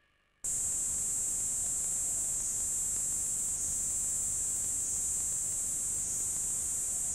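Dense insect chorus: a steady, high-pitched buzz that starts abruptly about half a second in.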